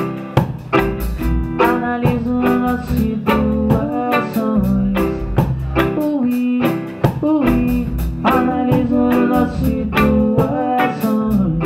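A live band playing an instrumental passage: electric guitar melody lines with bends, over keyboard and a drum kit keeping a steady beat.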